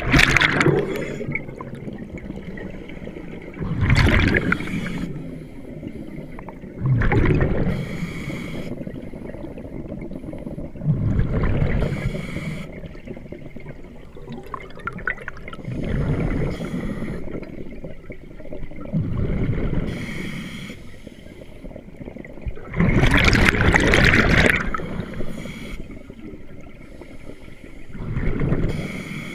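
Scuba breathing through a regulator underwater: rushing bursts of exhaled bubbles every three to four seconds, about eight breaths, over a low steady rumble.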